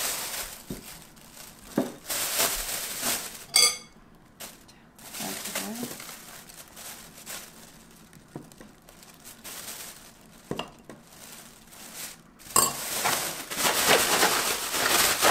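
A plastic bag crinkling as balloon flower roots are handled in it, and a metal spoon clinking against a glass bowl while frying powder is scooped into the bag. From about twelve seconds in, the bag is shaken hard to coat the roots, giving a loud, continuous rustle.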